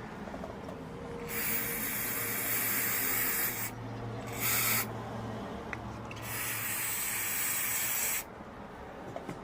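Aerosol can of throttle body cleaner spraying in three hissing bursts: a long one, a short one, then another of about two seconds.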